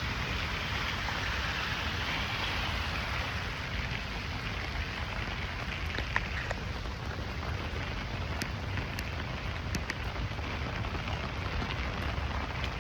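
Heavy rain falling steadily, a continuous hiss with a few sharp drip taps scattered through the second half.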